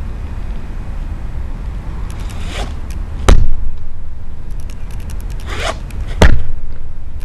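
Two loud, sharp thuds about three seconds apart, each led by a short swish of clothing, from a tai chi practitioner's forceful Chen-style movements; the second comes just as a lifted knee drops into a stomp. A steady low rumble of wind on the microphone runs underneath.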